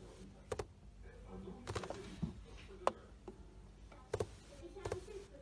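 Gerbil drumming its hind feet on the floor: short bursts of quick taps, about five in all, spaced roughly a second apart.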